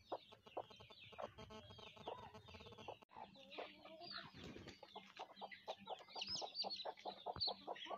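Chickens clucking, with short, high calls. The sound breaks off abruptly about three seconds in. A quick run of high, arching calls fills the second half.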